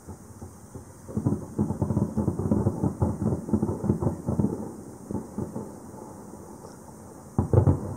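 Aerial fireworks exploding: a rapid, dense run of bangs from about a second in to about five and a half seconds, then one loud, deep boom near the end.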